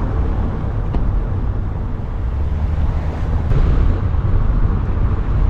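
Vehicle engine running steadily while driving, a low rumble, with wind blowing on the microphone.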